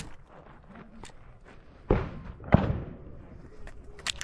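Two shotgun shots, about two-thirds of a second apart.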